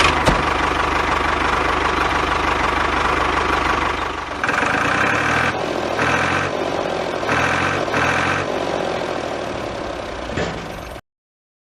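Small vehicle engine running steadily. In the middle it is joined by four short tonal blasts, and it cuts off abruptly near the end.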